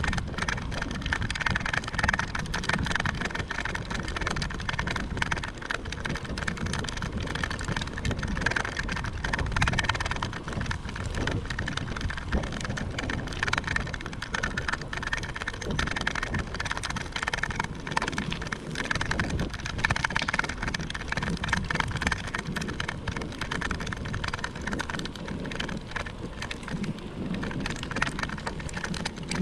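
Bicycle riding over a rough trail: steady wind on the microphone with a dense crackle and rattle that goes on the whole time.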